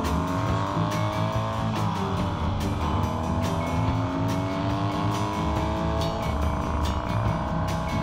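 Vintage motorcycle engine pulling up through the gears: its pitch climbs, drops about two seconds in and climbs again. Music with a steady beat plays over it.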